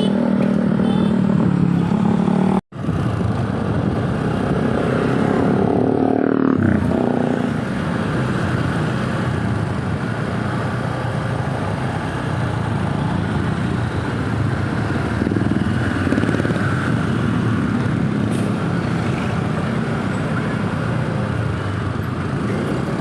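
Steady road traffic and engine noise, with a vehicle passing about six to seven seconds in. The sound cuts out for an instant about three seconds in.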